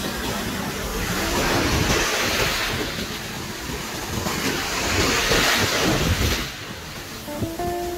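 Rough ocean surf breaking and washing up a sandy beach, the rush of the waves swelling twice, about two seconds in and again around five seconds.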